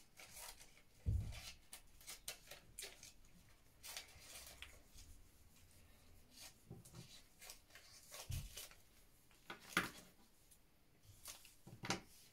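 Quiet rustling and handling of paper cut-outs, with scattered light taps and a few sharper knocks of things set down on a table, the loudest about a second in and near ten seconds in.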